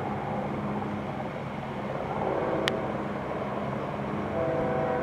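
Approaching BNSF diesel freight locomotive: a steady low engine drone, with its multi-tone air horn coming on and holding near the end. A single sharp click a little past halfway.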